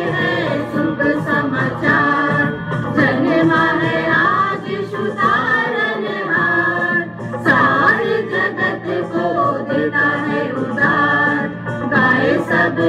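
A mixed choir of women and men singing a Christmas song together from song sheets, continuously.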